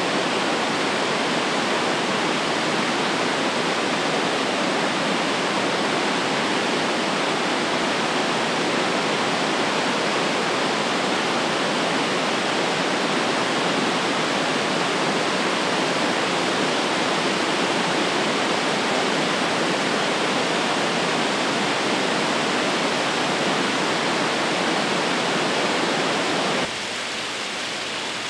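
Kudan no Taki cascade waterfall rushing in a steady, dense roar of falling water. Near the end the sound drops suddenly to a quieter, thinner rush with less low end.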